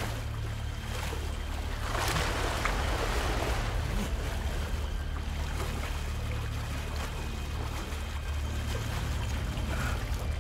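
Stream water splashing and sloshing as a hand is plunged in and rummages under the surface, swelling about two seconds in, over a low steady hum.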